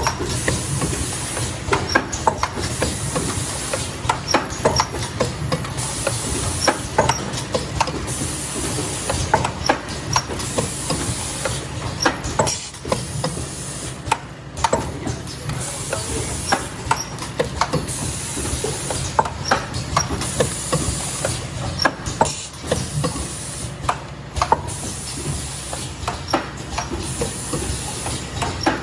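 Disposable glove folding and packing machine running: a steady mechanical clatter with many sharp clicks and short bursts of air hiss every couple of seconds.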